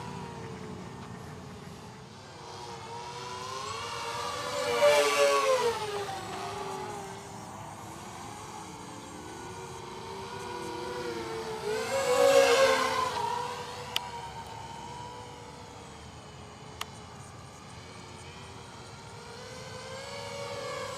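Eachine Falcon 180 racing quadcopter's brushless motors and propellers whining in flight, the pitch wavering up and down with the throttle. The whine swells loud twice, about five and twelve seconds in.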